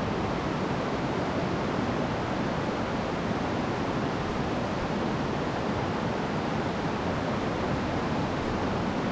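Steady rushing of water from the river and waterfall inside the cave, an even, unbroken noise.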